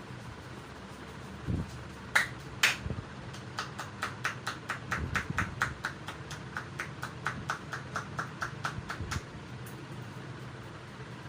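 Hands striking the body during a massage: two sharp slaps, then a quick, even run of percussive taps, about four a second, lasting some six seconds, over a steady low hum.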